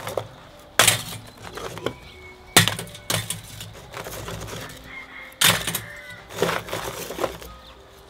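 Charcoal briquettes dropped into a metal chimney starter, landing one at a time with sharp clunks against the steel and the briquettes already inside, about five times.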